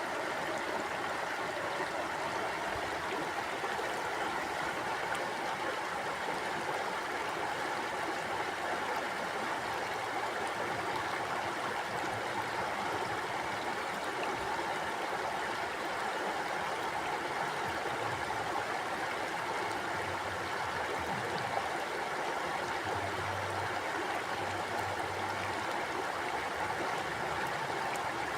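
Mountain stream flowing over rocks, a steady even rush of water.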